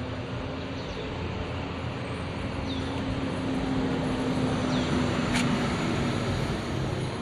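Shimizu electric water pump running steadily on test after being primed, a constant hum under the noise of the motor, getting a little louder past the middle. A single sharp click comes about five seconds in.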